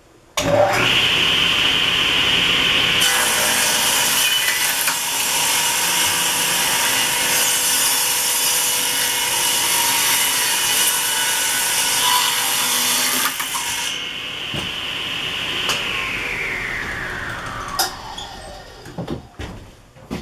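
Table saw switched on, cutting along the edge of a pallet board pushed through on a sled jig for about ten seconds over its steady whine. The saw then runs free, is switched off, and its whine falls in pitch as the blade spins down.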